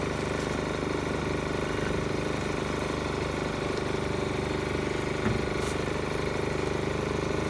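Portable inverter generator running steadily at an even pitch, with one short knock about five seconds in.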